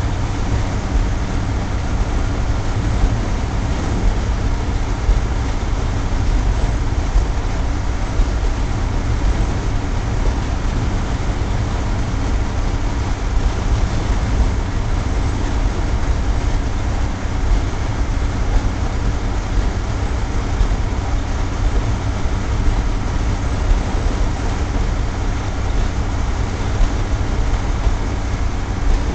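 Diesel railbus running steadily along the track, heard from inside its cab: a constant engine drone mixed with wheel and rail running noise.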